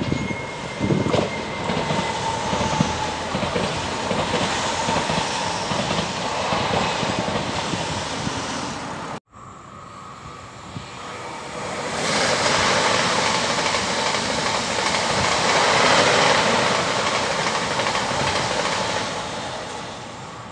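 Trains running on the tracks: a steady rolling rumble of wheels on rails, with a faint high tone in the first two seconds. After a brief cut-off about nine seconds in, another train's noise builds, holds, and fades away near the end.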